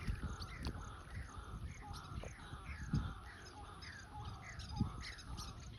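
Birds calling: a steady run of short, falling chirps, about two a second, over a low rumble.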